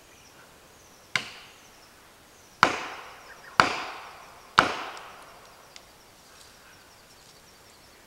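Four sharp blows of a hammer driving a felling wedge into a tree's back cut, the first lighter, then three about a second apart, each trailing off in an echo. The wedge is driven in to keep the tree from sitting back on the saw and to tip it over its hinge wood.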